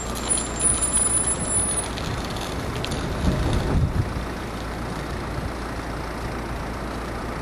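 Tram running past with a steady rumble, and a thin high squeal in the first couple of seconds.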